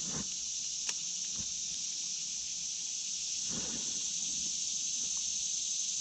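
Steady, high-pitched chorus of insects buzzing without a break, with one faint click about a second in.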